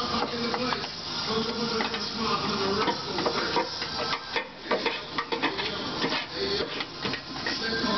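Irregular scraping, scuffing and clicking as a tool and gloved hand work the dirty, rusty inner quarter-panel sheet metal, loosening dirt and rust scale. The scrapes are busiest in the middle. Music plays underneath throughout.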